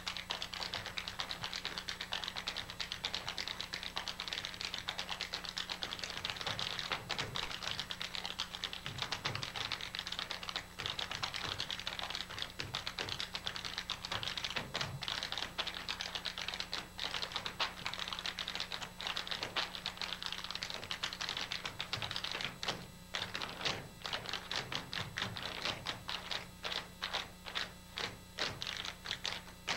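Tap shoes striking a wooden floor in fast, dense rhythms, thinning to separate crisp taps over the last several seconds. A steady low hum runs underneath.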